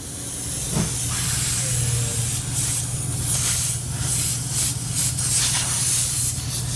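Nitrogen back-blown through a refrigeration capillary tube, hissing out hard and then spurting unevenly for the last few seconds. The strong, free flow shows the cap tube is clear, not restricted.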